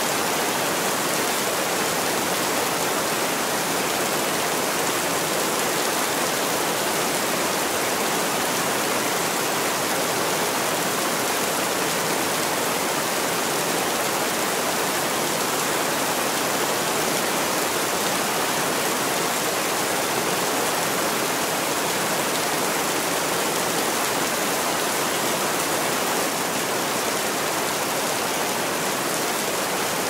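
Steady rain falling: an even, unbroken hiss with no thunder.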